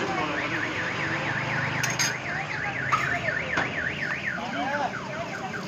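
A warbling electronic alarm, its pitch sweeping rapidly up and down about four times a second, then switching to a different sweeping pattern about two-thirds of the way through, over steady street noise with a couple of sharp clicks.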